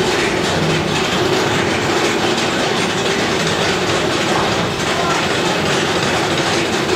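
Mine-train roller coaster running along its track, a steady loud rumble and clatter of the wheels on the rails.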